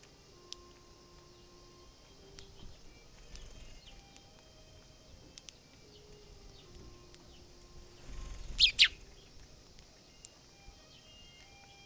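Eurasian tree sparrow pecking with small, faint clicks, then two loud, sharp chirps in quick succession about eight and a half seconds in, over soft background music.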